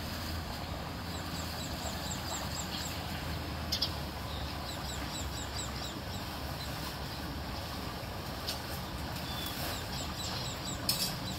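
Steady noise of floodwater draining into a blocked culvert, with runs of quick, high bird chirps, several a second. A few sharp clicks come through, loudest near the end.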